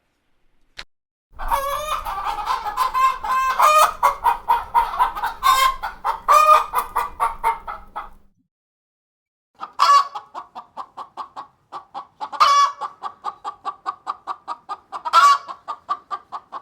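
Chickens clucking in two separate recordings with a short gap between them. The second recording is a steady run of about three clucks a second, broken by a louder squawk every two to three seconds.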